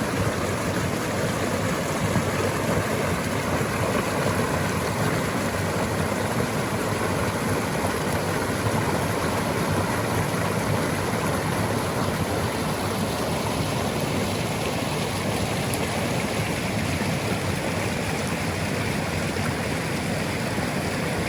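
Swollen forest creek rushing over rocks in rapids, a steady loud water noise.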